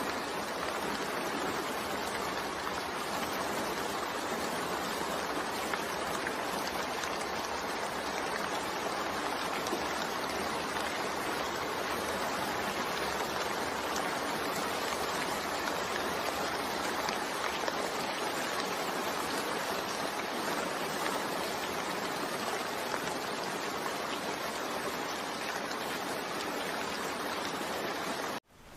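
Steady rain falling, an even unbroken hiss with no thunder or separate drips standing out. It cuts out abruptly near the end.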